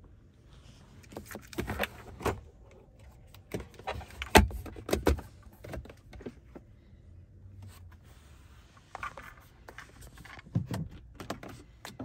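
Clicks, knocks and rattles of hands working a car's interior fittings, including the key fob and the sliding cover over the centre-console cupholders. The sharpest knocks come about four and five seconds in.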